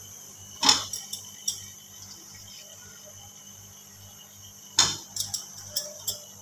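Steel cookware clattering as chopped turnips and greens go from a steel bowl into an aluminium pressure cooker: two sharp knocks about four seconds apart, each followed by a few lighter clinks, over a faint steady hiss.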